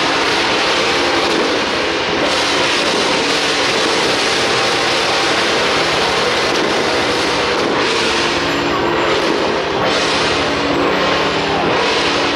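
Loud, unbroken din of a temple procession's traditional music: clashing percussion under a few held tones.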